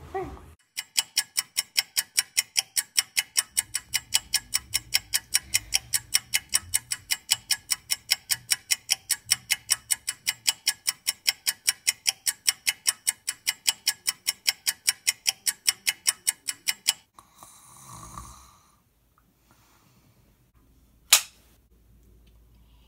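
Steady rapid ticking sound effect, about four ticks a second, that stops suddenly; a short rustle follows, and one sharp click comes near the end.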